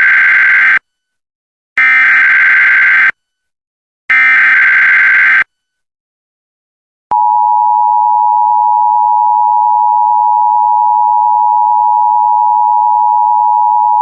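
Emergency Alert System SAME header: three identical bursts of screeching digital data tones, the first already under way, each followed by a second of silence. About seven seconds in, the steady EAS attention tone begins and holds at one pitch.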